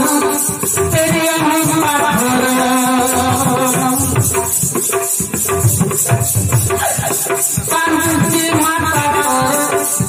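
Folk-theatre music: a melody of long held, sliding notes over drums and a steady, fast high-pitched percussion beat.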